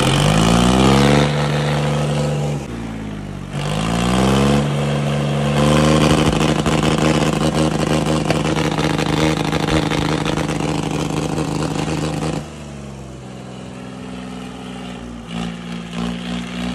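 Hindustan tractor's diesel engine revved hard: it climbs, dips briefly about three seconds in, climbs again and is held at high revs for about six seconds, then falls back to a lower steady run about twelve seconds in.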